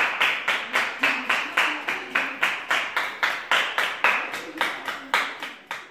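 A small group of people clapping their hands together in a steady rhythm of about four claps a second, each clap trailing off in the room's echo. The clapping fades out at the very end.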